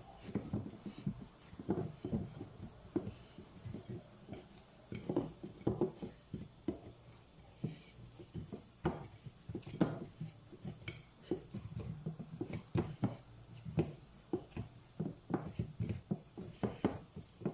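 Pizza dough being kneaded and pressed by hand, giving irregular soft thumps and knocks several times a second.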